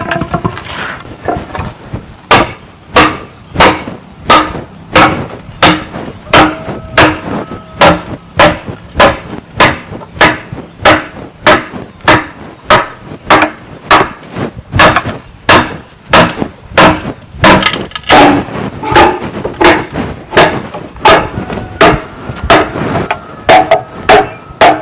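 Steady hammering on bamboo door work, about one and a half blows a second from about two seconds in, each strike ringing briefly.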